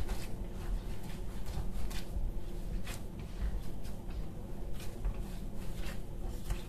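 A hand kneading coarse bulgur-and-semolina köfte dough, pressing and pushing it against a metal tray, with irregular soft scrapes and squishes.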